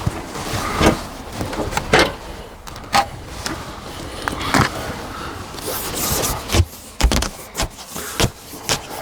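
Plastic trowel rubbed and scraped over flashing tape to press it onto the wall sheathing and the window frame, with irregular scrapes, clicks and knocks and a longer rubbing stroke about six seconds in.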